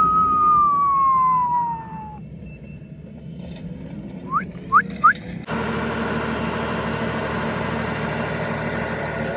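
A long, loud whistle that falls slowly in pitch for about two seconds, then three short rising chirps, then a steady engine running that starts abruptly about halfway through.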